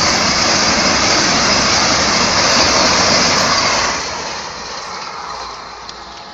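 Train 18 (Vande Bharat Express) electric trainset running at high speed: a loud, steady rush of noise that fades away over the last two seconds or so.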